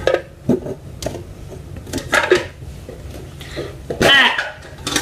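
A boy's loud, high-pitched yell about four seconds in, after a few short knocks and handling sounds from a metal tin.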